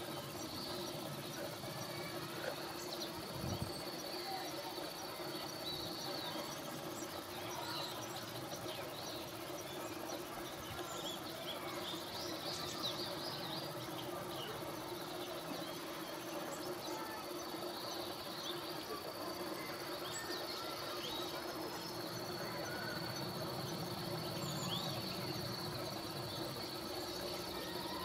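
Insects chirping and trilling in the background. A steady high trill fades out about six seconds in and returns around eighteen seconds in, among scattered short, high chirps.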